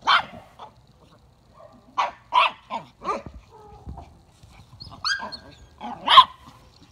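Small dog barking at a monkey in short, sharp, high-pitched yaps, several in quick succession with short pauses between them.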